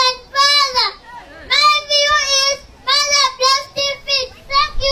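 A young boy's high voice speaking loudly in a chanting, sing-song delivery. His phrases are held on long, level notes, with short pauses between them.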